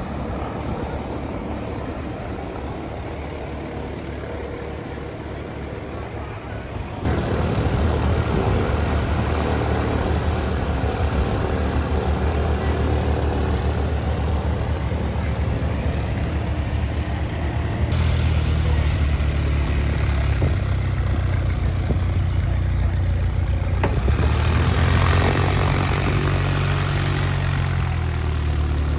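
Piper PA-28 light aircraft's piston engine and propeller running at low taxiing power, a steady low drone close by. Quieter at first, it turns abruptly louder about seven seconds in.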